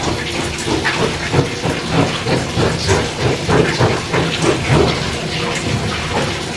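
Water pouring from a tap into a bathtub as it fills, a loud, steady splashing rush.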